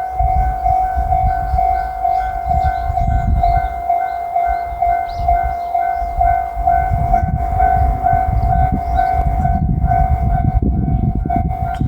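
Japanese level-crossing warning bell ringing, its electronic tone repeating about twice a second, over the low rumble of a JR Shikoku 8000 series electric train running through the crossing, heaviest in the second half.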